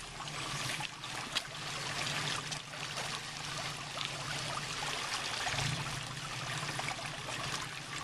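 Creek water trickling and running over rocks, with the 1993 Toyota 4Runner's engine idling as a low steady hum underneath.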